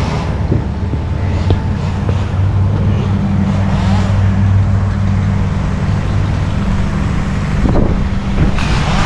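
An engine running steadily at a constant speed, a low, even hum.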